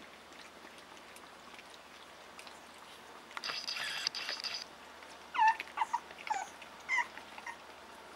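Young Mini Schnauzer puppies squealing and yelping while feeding at bowls: one high squeal about three seconds in, then about five short yelps over the next two seconds, with faint clicks of eating in between.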